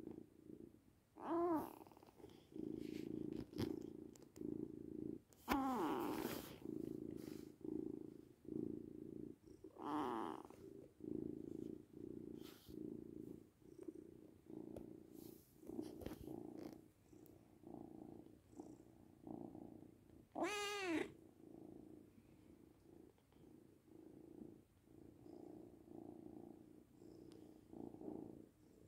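A young white-and-tabby kitten purring in a steady, pulsing rhythm, with a few short meows over it, the loudest about twenty seconds in.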